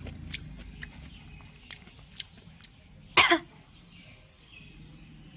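A single short cough about three seconds in, the loudest sound, with a few faint clicks around it.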